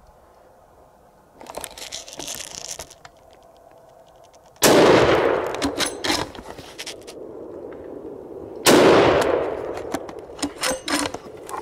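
Two hunting-rifle shots about four seconds apart, each a sharp crack with a long echo dying away, followed by quick metallic clicks as the bolt is worked. A brief rustle comes a couple of seconds before the first shot.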